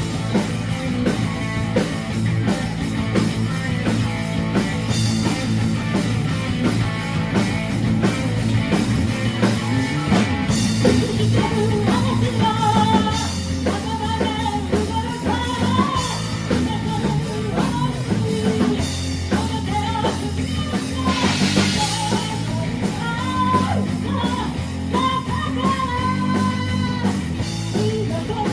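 Rock band playing with drum kit, electric guitar and bass, with a sung melody coming in about twelve seconds in.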